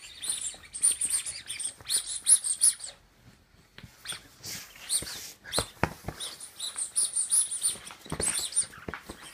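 A puppy chewing a squeaky dog toy, setting off rapid high squeaks in two long runs with a lull between them, in which a few knocks are heard.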